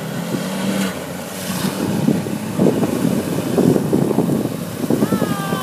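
An old Jeep's engine running steadily as it wades into deep water, then irregular splashing and churning as it pushes a bow wave through the pond up to its hood.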